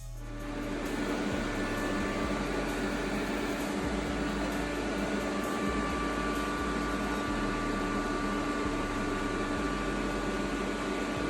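Welding arc on stainless steel manifold tubing, burning steadily as a continuous hiss with a faint held buzz. It starts abruptly and runs without a break.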